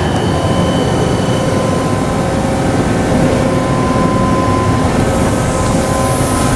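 Motch 219D twin-spindle CNC vertical turret lathe running under power: a steady mechanical hum and rumble with a few steady whining tones on top.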